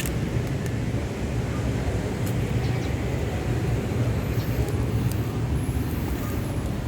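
Steady low outdoor background rumble, with no clear single event.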